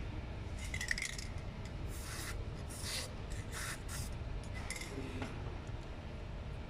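Several short rasping scrapes as metal and plastic parts of a car's front strut (spring, top plate and top mount) are handled and fitted together by hand. A steady low hum runs underneath.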